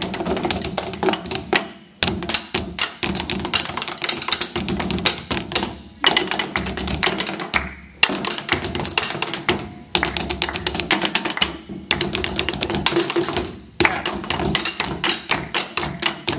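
A small ensemble of drumsticks playing fast, interlocking rhythms on rubber practice pads set on top of djembes: a dense run of sharp taps, broken by short pauses between phrases about every two seconds.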